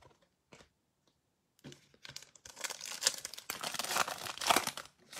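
Foil wrapper of a Donruss Optic basketball trading card pack being torn open and crinkled by hand, starting about a second and a half in and loudest near the end.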